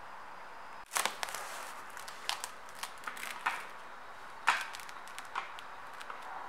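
Plastic cling wrap crinkling and crackling as it is handled and laid over a plate. Irregular sharp crackles with rustling between them start about a second in, the loudest about four and a half seconds in.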